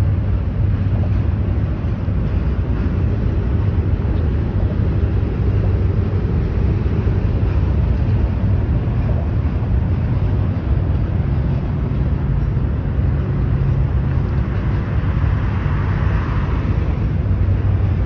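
Freight train cars rolling past: a steady rumble of wheels on rail over a constant low hum.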